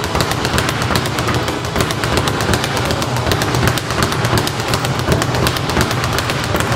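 Speed bag being punched in a fast, unbroken rhythm, the bag rattling against its rebound platform many times a second.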